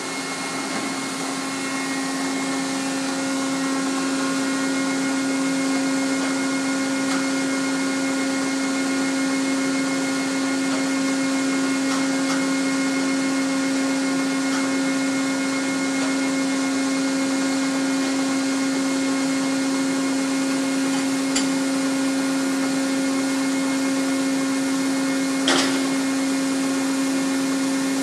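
Steady machinery hum in a metal-finishing shop: a strong low drone over a constant whirring noise. It grows a little louder over the first few seconds, with a few light knocks and one sharp clack near the end.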